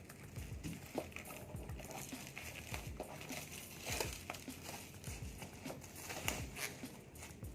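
Plastic packaging crinkling and rustling as it is handled and pulled open, with irregular clicks and crackles.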